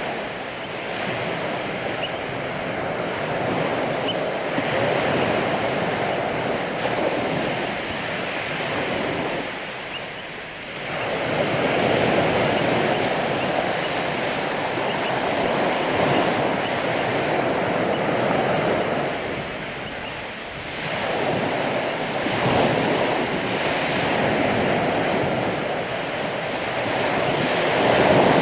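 Ocean surf breaking and washing up a beach: a continuous rush of water that swells and eases, dipping briefly about ten and twenty seconds in before the next waves come in.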